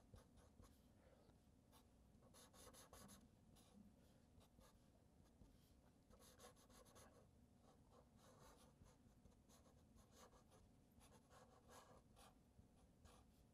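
Faint scratching of a felt-tip marker drawing strokes on paper, in several short spells with pauses between.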